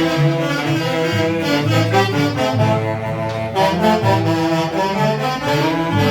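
A band playing tunantada, the dance music of Jauja, with wind instruments carrying a held, swaying melody over a steady bass line.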